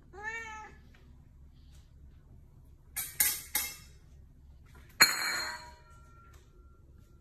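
A cat gives one short meow, rising then falling in pitch, right at the start. About three seconds in come three sharp clicks or knocks, and about five seconds in a sudden, louder noisy sound that fades over under a second.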